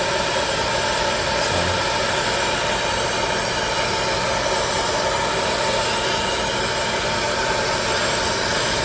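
Hot-air popcorn popper running as a heat blower: its fan motor blows a steady rush of air with a constant faint whine, heating the tablet to loosen the screen adhesive.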